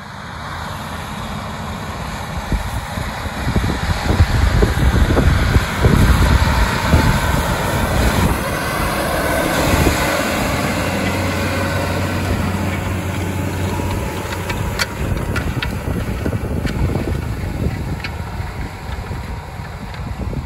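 John Deere 8RX tracked tractor's engine running steadily as it pulls a Pöttinger Terradisc disc harrow through stubble, loudest in the first half, with a few sharp clicks in the second half.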